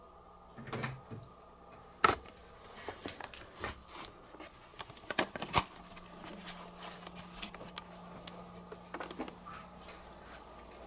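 Handheld camera handling and footsteps as someone moves through a house: scattered, irregular clicks and knocks over a faint steady hum, with a sharp knock about two seconds in.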